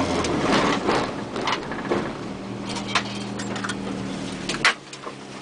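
Car engine heard from inside the cabin, dropping in speed as the car rolls to a stop on a dirt track, then idling steadily before cutting off suddenly with a click near the end. Scattered knocks and rattles throughout.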